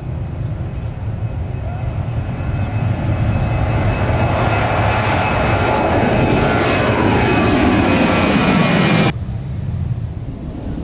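Airliner's engines at take-off, growing louder as it passes with the pitch sliding down, then cut off abruptly about nine seconds in.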